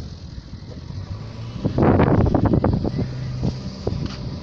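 Wind buffeting the microphone in loud, crackling gusts, heaviest from just under two seconds in, over a steady low drone from the small RC plane's electric motor and propeller overhead.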